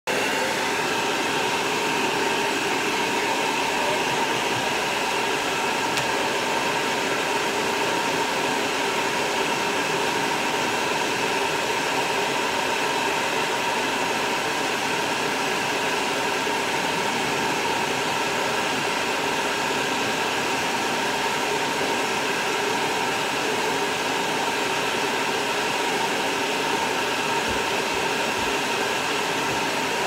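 Large pet grooming dryer blowing steadily: an even rush of air with a faint steady whine in it, holding at one level throughout.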